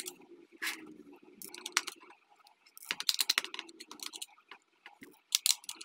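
Small screwdriver working the screws out of a plastic Bluetooth speaker housing: scattered clusters of small clicks and scrapes of metal on plastic.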